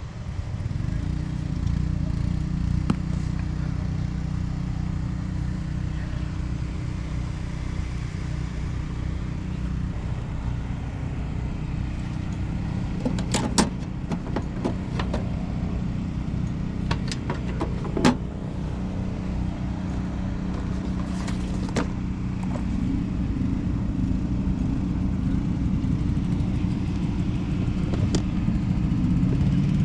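A steady low engine hum, with a few sharp clicks and knocks over it.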